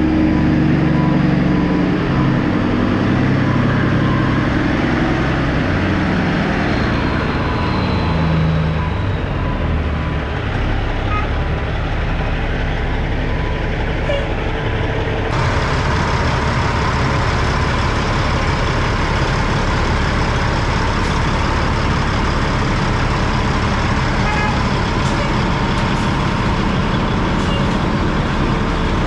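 Dump truck's diesel engine running as the truck drives, its pitch shifting up and down over the first several seconds, then holding steady.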